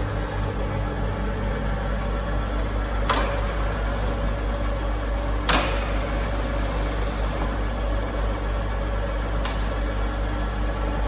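EST Ticino ET 520 universal lathe running: a steady motor and gearbox hum, with three sharp clicks.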